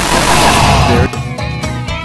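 A loud rushing noise cuts off suddenly about a second in, and a bright jingle with clear held notes over a low beat follows.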